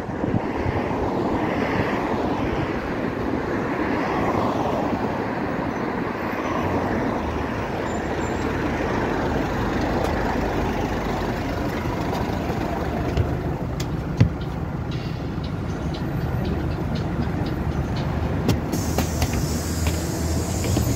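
Road traffic going past, then a PAZ-320402-04 city bus pulling up alongside with its engine idling in a low, steady hum. There is one sharp knock about two-thirds of the way through. Near the end the engine is heard from inside the bus, with a brighter hiss over it.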